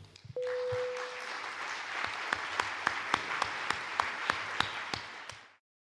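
Audience applauding, with many separate claps standing out. It starts about half a second in, with a short steady tone sounding for about a second at the onset, and fades out near the end.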